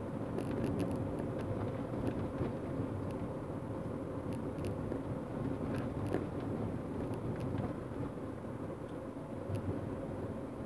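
Road noise inside a car driving along a broken, patched lane surface: a steady rumble of tyres and engine with scattered sharp clicks and knocks as the car jolts over the rough tarmac and loose grit.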